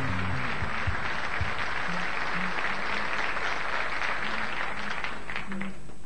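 Audience applauding steadily, thinning to a few last claps near the end. Background music fades out under the applause in the first second or so.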